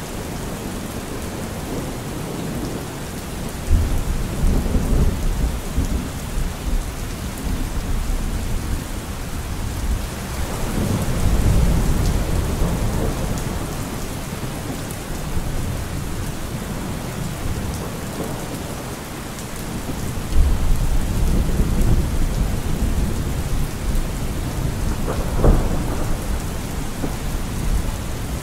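Steady rain with several low rolls of thunder swelling and fading, and one sharper crack near the end.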